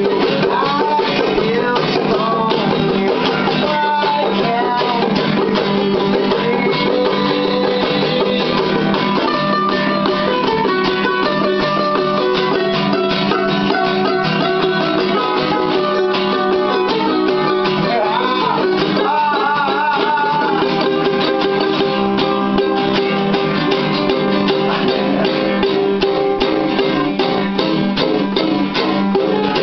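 Two guitars, one of them acoustic, playing a song together: plucked and strummed notes with a melody line moving over them.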